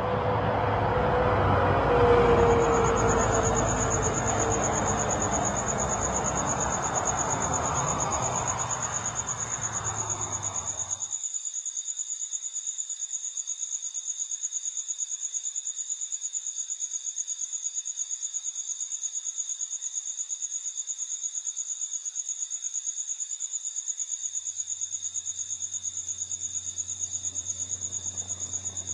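A steady, high-pitched, rapidly pulsing trill like crickets, under a broad rushing noise that cuts off about eleven seconds in. A low hum fades in near the end.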